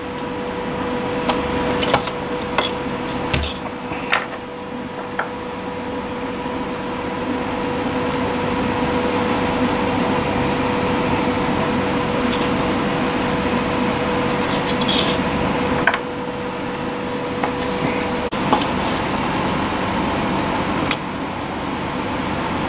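A steady mechanical hum and hiss, slowly growing louder, carries a steady tone that stops abruptly near the end. Over it come light clicks and knocks of small plastic parts and a screwdriver being handled on a wooden workbench, most of them in the first few seconds.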